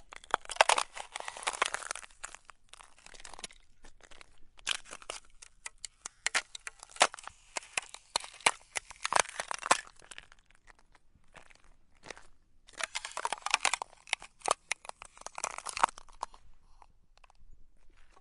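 Thin ice over a tire-track puddle crunching and cracking underfoot, in several bouts of crisp, rapid crackling with short pauses between them, the longest lull around eleven to twelve seconds in.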